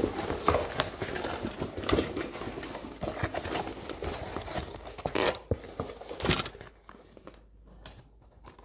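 Rustling, crinkling and soft knocks as a cut-open match football's layers and black rubber bladder are handled and turned over. The loudest knocks come a little after five and six seconds in, and then it goes quiet.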